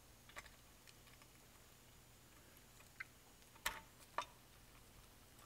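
Near silence, broken by a handful of faint, short metallic clicks as a small retaining clip is worked onto a pedal pivot shaft, the sharpest click about two-thirds of the way through.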